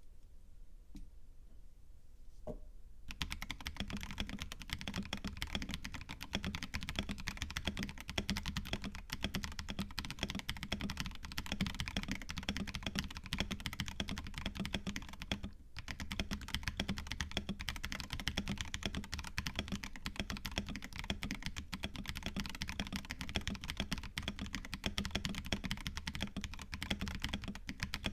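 Fast, continuous typing on a KBD67 Lite mechanical keyboard with a silicone-poured case, lubed and filmed Tecsee Purple Panda tactile switches and Drop MT3 Susuwatari keycaps. The typing starts about three seconds in and breaks off briefly about halfway through.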